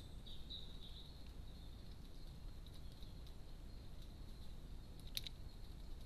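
Faint steady background hiss with a thin high whine, broken about five seconds in by a single sharp tap: a carrion crow's bill striking the feeder dish as it pecks at the food.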